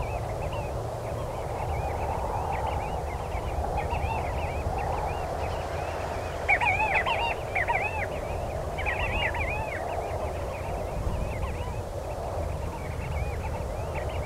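Birds calling with short, rapidly repeated arching chirps, louder in two spells around the middle, over a steady low rumble.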